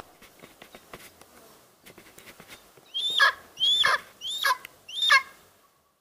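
Golden eagle calling: four short, high yelps, each sliding down in pitch, a little over half a second apart, after a few faint clicks.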